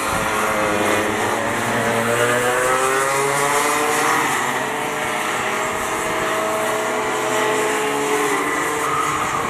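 Several small two-stroke kart engines racing, their notes rising and falling in pitch as the karts accelerate and lift off through the corners.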